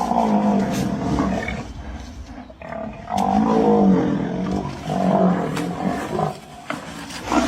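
A large wild animal giving low, drawn-out growling roars in three main bouts.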